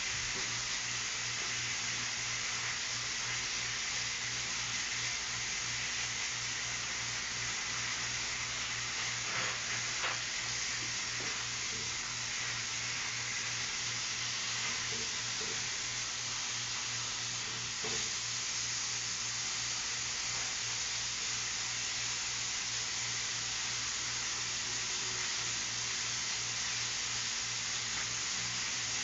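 Food sizzling steadily in a frying pan on an electric stove, with a couple of light knocks from a utensil against the pan, over a steady low hum.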